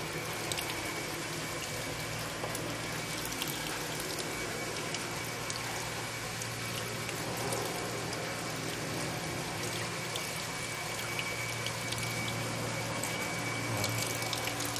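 Water running steadily from a tap over the roots of hydroponic leafy vegetables as they are rinsed by hand, splashing into the sink basin below.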